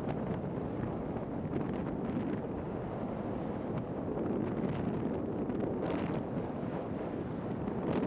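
Wind buffeting the camera microphone as the skier moves downhill, a steady rumbling rush, with short hisses of skis sliding on the snow about five and six seconds in.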